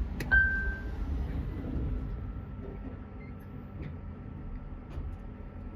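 Elevator car in motion: a steady low rumble with a faint, steady high whine. A click and a brief high tone come just after the start.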